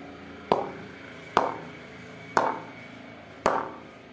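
Leather cricket ball bounced on the face of a Kashmir willow cricket bat: four sharp wooden knocks about a second apart, each with a short ringing ping. It is a ping test of the bat, which is said to have a very strong punch.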